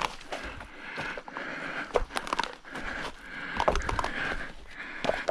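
Irregular scraping, knocking and crackling from a heavy power cable and its sheathing being worked by hand.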